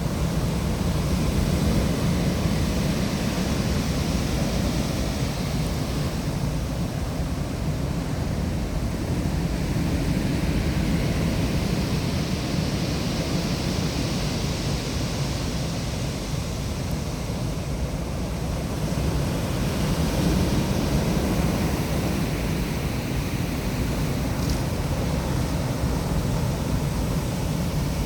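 Storm waves breaking and rolling in, with a continuous wash of surf that swells and fades in long surges. Strong wind buffets the microphone, giving a heavy, constant low rumble.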